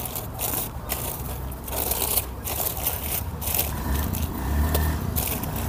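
Black plastic polybag crinkling and rustling in repeated short bursts, with soil crunching, as soil is pressed and firmed into it by hand. A low engine hum grows in the background after about four seconds.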